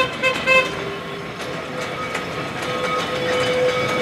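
Horn of Manx Electric Railway locomotive No. 34 giving two short toots, then its diesel engine running with a steady hum that grows louder as the locomotive approaches.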